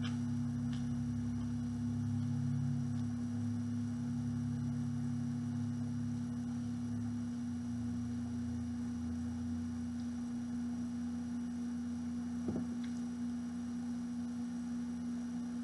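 Steady hum: one held tone with a lower, uneven drone beneath it, and one faint tap about twelve and a half seconds in.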